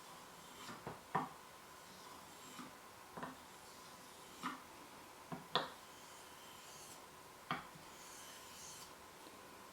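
Knife blade in a sharpening jig worked across a wet 6000-grit whetstone with a slurry on it: a run of short, irregularly spaced scrapes and light knocks.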